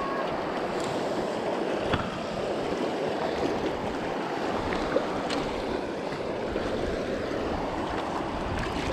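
Steady rush of flowing river water, with a few faint light clicks.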